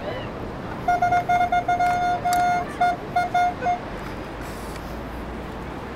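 Metal detector sounding off on a buried coin target. It gives a high, steady tone in repeated beeps with short gaps for about three seconds, starting about a second in and ending with a few quicker beeps.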